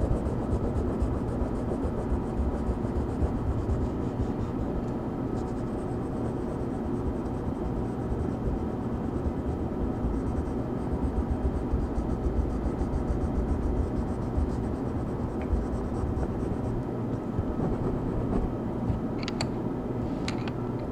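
Steady low rushing background noise, with the faint repeated scratching of colouring strokes on paper. There are a few short, sharp high sounds near the end.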